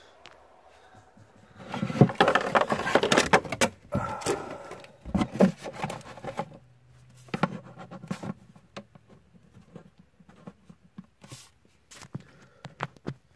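Hands handling a posable plastic action figure: a loud flurry of rustling and clicking as it is picked up and its limbs are moved, then a few scattered light clicks and taps.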